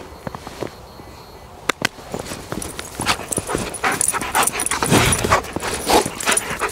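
A young German Shepherd, excited in rough play, whimpering and yipping with panting breaths. The sounds get busier from about two seconds in as his arousal climbs.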